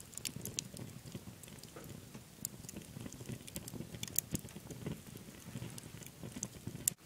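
Wood fire burning in a kitchen wood stove's firebox, crackling and popping irregularly over a low rumble of the flames, with a sharper pop near the end.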